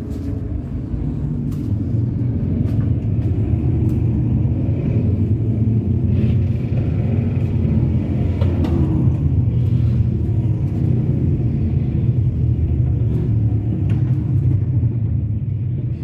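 A group of motorcycles riding past one after another, their engines making a steady deep rumble that swells a couple of seconds in.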